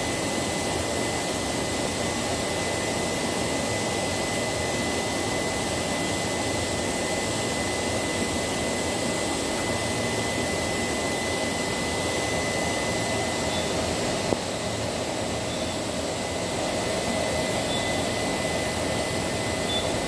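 Steady hum and hiss of production-floor machinery and air handling, with a constant high-pitched whine. There is a single sharp click about 14 seconds in, and a few faint short beeps follow in the second half.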